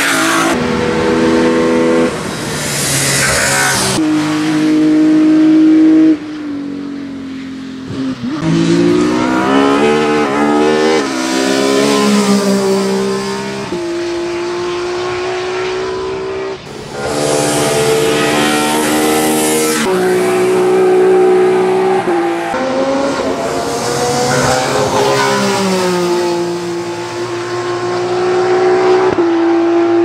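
Race-prepared Ford Escort RS 2000 Mk2 hillclimb car's engine at full throttle, revving hard and shifting up through the gears with quick steps in pitch between rising sweeps. The sound cuts abruptly several times from one pass to the next.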